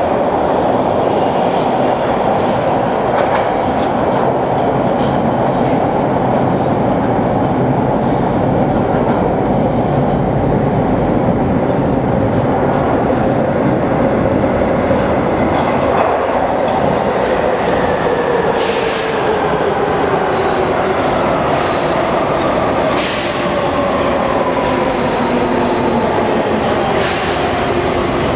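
TTC subway trains: a loud, steady rumble of a train running through the station, then another train coming in with its motor whine sliding down in pitch as it brakes. A few short hisses come in the second half.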